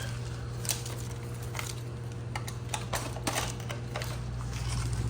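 Replacement refrigerator compressor with a 3-in-1 start kit being powered up: a steady low hum with scattered light clicks and taps. The hum grows stronger near the end as the compressor comes on.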